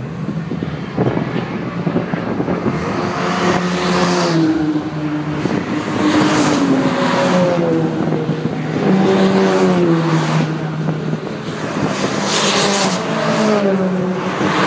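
Several cars driving at speed on a race circuit pass one after another, each engine note dropping in pitch as the car goes by.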